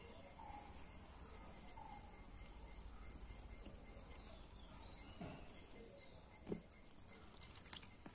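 Faint spoon stirring flour into a thin batter in a plastic bowl, with a few soft knocks of the spoon against the bowl; the loudest comes about six and a half seconds in. Faint short chirps sound in the background near the start.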